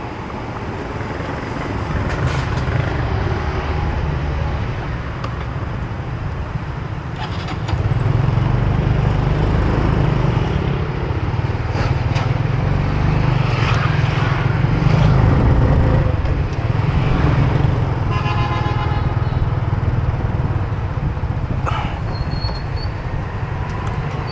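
Motor scooter riding along a city street in traffic: a steady low rumble of its engine and road noise, growing louder about eight seconds in as it picks up speed.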